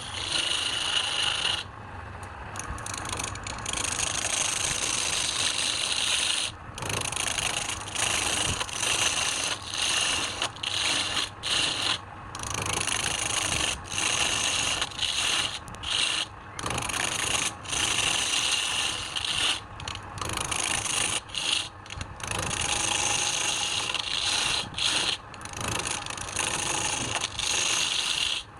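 Wood being turned on a lathe: a cutting tool scraping the spinning wood in long continuous passes, broken by many short pauses as the tool comes off the work.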